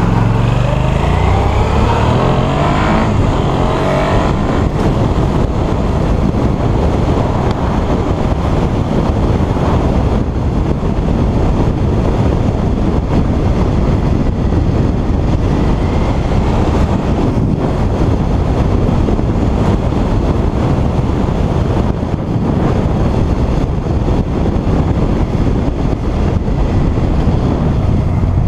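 Suzuki SV650 motorcycle's V-twin engine rising in pitch as the bike pulls away and accelerates in the first few seconds, then running steadily while riding, under heavy wind rush on the microphone.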